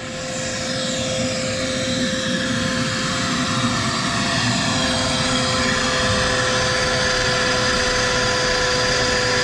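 An electric motor starting up and then running steadily with a whine.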